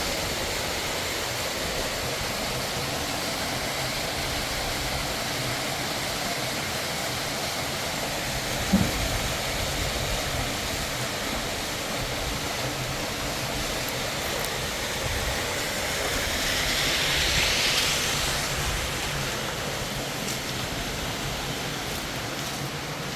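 Steady rush of a fast mountain river, a continuous hiss of water. A short knock comes about nine seconds in, and the water swells brighter and hissier for a moment around seventeen seconds.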